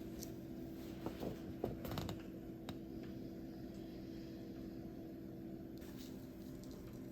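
Steady low machine hum in a small room, with a few soft rustles and clicks between about one and three seconds in.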